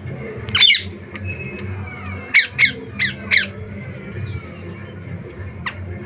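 Rose-ringed parakeets screeching: one loud call about half a second in, then a quick run of four sharp calls each falling in pitch, and a single call near the end, with softer chatter in between.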